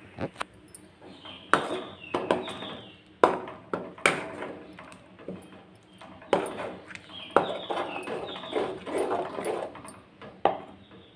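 Metal spoon scraping round and knocking against a metal kadai while stirring a thick gravy, in repeated bursts of scraping and wet sloshing broken by sharp clinks.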